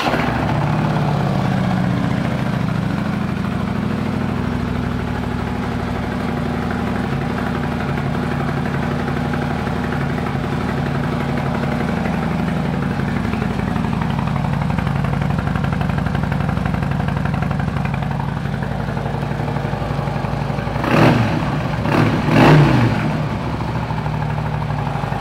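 2014 Harley-Davidson Street Glide's Twin Cam 103 V-twin idling steadily through Vance & Hines downturn pipes, then revved in three quick throttle blips near the end.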